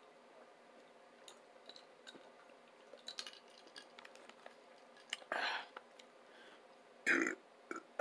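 A woman burping twice, short and breathy, about five and seven seconds in, after a few faint light clicks.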